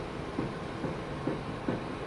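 Volkswagen Polo Sedan steering knocking: a dull knock repeating evenly about twice a second, five times. The knock is a fault in the steering.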